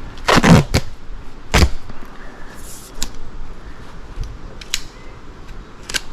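Handling noise: a handful of sharp knocks and clicks, the loudest about half a second in, with a brief rustle near the middle.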